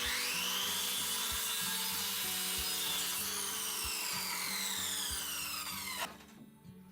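A power tool cutting wood for about six seconds: its whine rises as the cut starts and falls toward the end, then the sound stops abruptly. Soft background music with a steady beat plays underneath.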